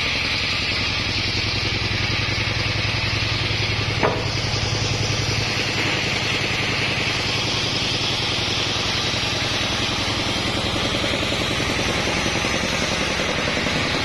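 Sawmill machinery running steadily, an engine-like drone with a fast, even pulse. A single sharp knock about four seconds in.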